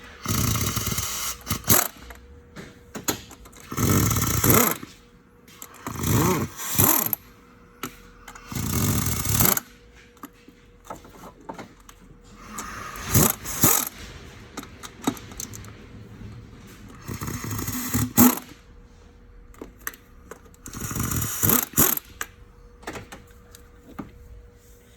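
Power ratchet running in short bursts of about a second, seven times, running down the lower intake manifold bolts on a Dodge 3.6 V6.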